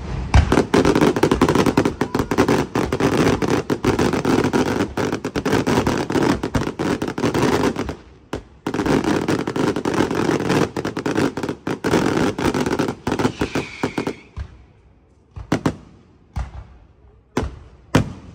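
Fireworks going off in a rapid, dense crackle of bangs for about fourteen seconds, with a brief break near the middle, then thinning to single bangs about a second apart.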